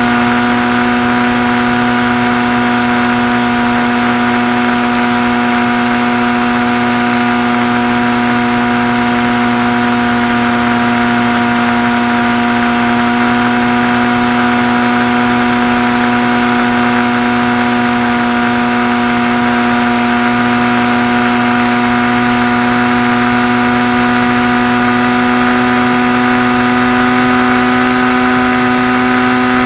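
Electric motor and propeller of a Skywalker RC model plane running at steady throttle in flight: a loud, even drone that barely changes pitch, over a rushing noise of air.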